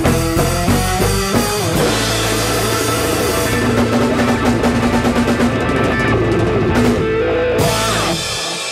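A live rock band with drum kit, electric bass and electric guitar is playing. It opens with a run of short stabbed chords, then the full band plays on with cymbals crashing and drums under a held chord. About eight seconds in the band stops, leaving the last chord ringing.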